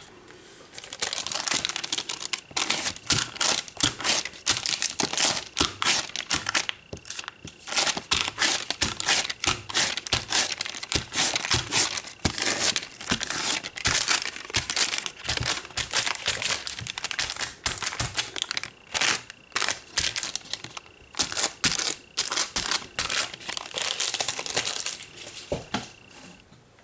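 Crinkly material being crumpled and handled, with rapid crackles following one another almost without a break, as the nail art work mat is cleared up.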